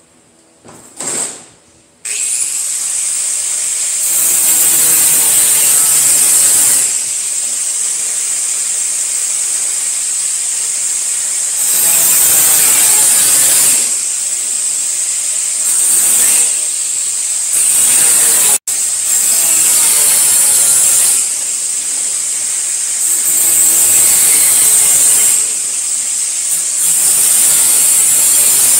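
Angle grinder switching on about two seconds in and running with a high whine, growing louder in repeated spells as the disc is worked against sheet-steel offcuts.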